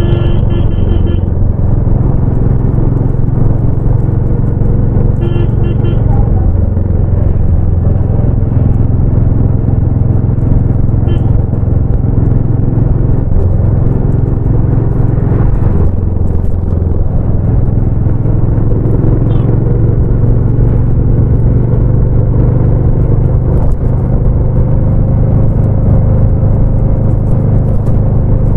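Royal Enfield Bullet 350 single-cylinder engine and exhaust running steadily under way, its low note shifting a few times as the speed changes. Short horn beeps sound at the start and again about five seconds in.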